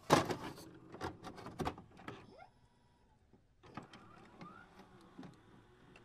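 Glitchy electronic sound effects for an animated loading screen. A sudden burst of sharp clicks and crackles opens it, followed by scattered clicks and short pitch sweeps. It goes quieter for a moment in the middle, then more clicks and a brief rising sweep come near the end.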